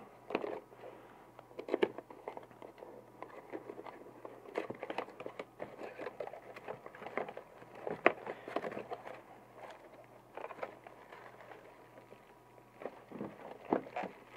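Packaging being handled and opened by hand: irregular rustling and crinkling with scattered sharp clicks and taps.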